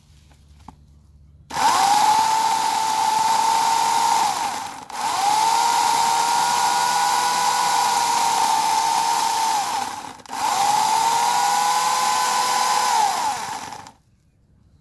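Portland 14-inch electric chainsaw's motor running in three long bursts, with a steady high whine. It winds up at each start and winds down at each stop, with brief gaps between bursts where the trigger is let go.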